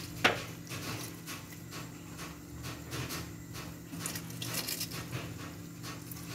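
A pan of noodle broth at the boil, with soft irregular bubbling and the rustle of cabbage handfuls being dropped in. There is a sharp clink about a quarter second in, and a low steady hum runs underneath.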